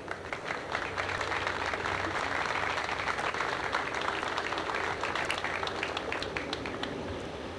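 Audience applauding: a dense patter of many hands clapping that builds over the first second or two, holds, and dies away near the end.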